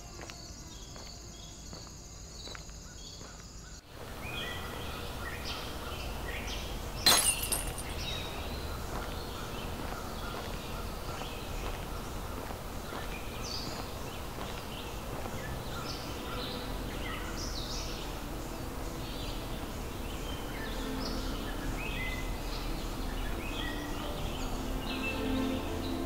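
Outdoor rural ambience: a steady high insect trill for the first few seconds, then birds chirping in short scattered calls over a bed of background noise. One sharp crack about seven seconds in.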